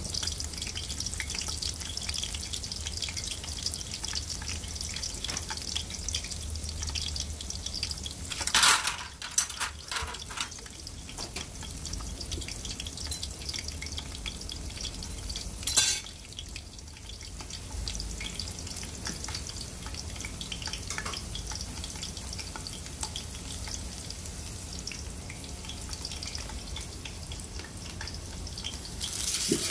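Sliced onions frying in hot oil in a metal pot: a steady sizzle with fine crackling. Two short, louder noises come about 9 and 16 seconds in, and the sizzle swells at the very end as a leg of mutton goes into the oil.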